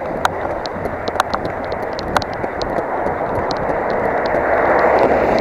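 Steady rushing noise of wind and rain on a camera worn by a runner on a wet street, with scattered sharp ticks of raindrops hitting the camera housing. The rushing swells near the end as a car approaches on the wet road.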